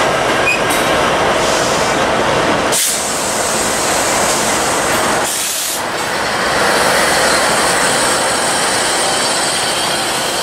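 Diesel locomotives of a freight train passing close by, engines running and steel wheels rolling on the rails. The level dips briefly twice, about 3 and 5.5 seconds in, with a short hiss each time.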